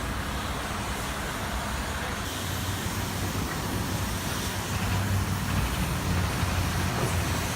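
Steady rumble of road traffic, growing a little louder about two-thirds of the way through.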